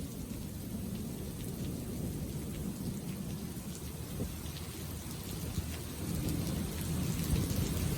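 Rain falling with a low rumble underneath, which grows louder about six seconds in.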